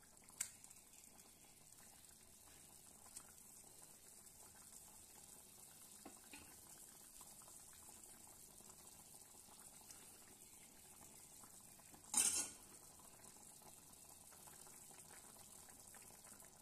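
Fish curry simmering in a stainless steel pan: a faint, steady bubbling hiss, with a short loud metallic clatter of the steel ladle against the pan about twelve seconds in and a lighter clink near the start.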